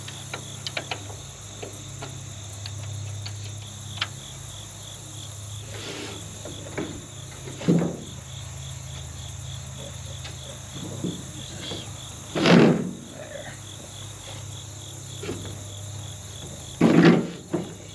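Crickets chirping steadily, with a few light clicks and three louder short knocks or thumps as the tractor's condenser is pushed and slid along its mounting track; the two loudest knocks come past the middle and near the end.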